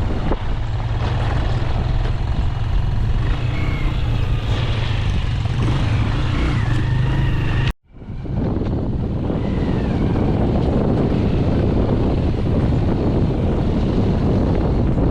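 Motorbike engine running steadily during a ride, with rushing wind noise over the microphone. The sound cuts out abruptly for a moment about eight seconds in.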